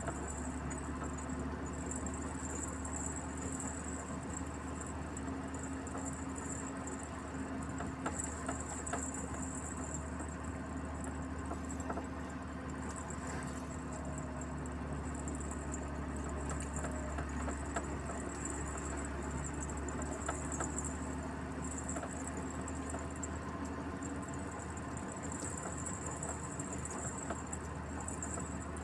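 Truck driving on a paved road: a steady low engine and road rumble, with a high, pulsing insect buzz over it.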